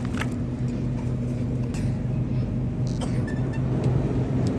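Steady low hum and rumble of a shop's background, with a few faint clicks.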